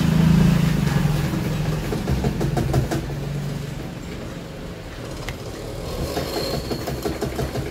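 A steady low mechanical hum, like an engine running, loudest in the first couple of seconds and then fading.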